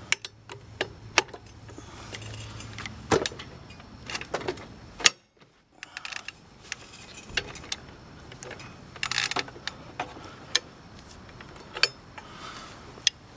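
Steel hand tools clinking and knocking: a homemade perforated square-tube spanner with bolts and a breaker bar with socket being fitted and shifted against a scooter's variator. Scattered sharp clicks and short rattles, the loudest about a third of the way in, followed by a brief moment of silence.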